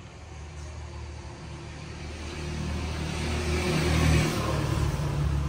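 A motor vehicle's engine rumble growing louder as it comes close, loudest about four seconds in, with some tyre hiss at the peak.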